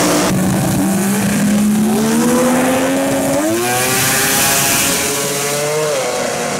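Mazda RX-8 drag car's engine at full throttle as it launches and accelerates down the strip. The pitch climbs steadily, with two sharp steps up, the second near the end.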